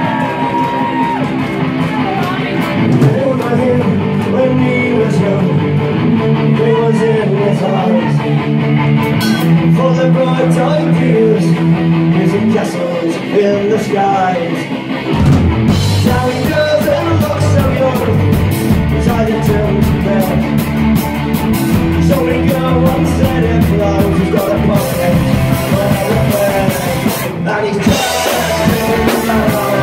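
Live folk-punk band playing, with singing, acoustic guitar, fiddle and drum kit, at loud club volume. About halfway through, the full band comes in harder with a heavier low end and cymbals.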